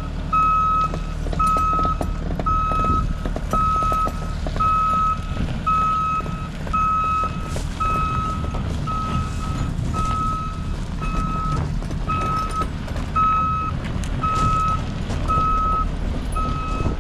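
A vehicle's reversing alarm beeping steadily, about once a second, over the low rumble of its engine running.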